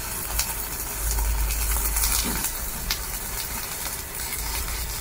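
Stick-welding arc from a Parkside PISG 120 D5 inverter welder burning a 2.5 mm electrode at about 76 amps: a steady crackling sizzle with sharp pops now and then. The arc is holding stable even on this low setting for the thicker rod.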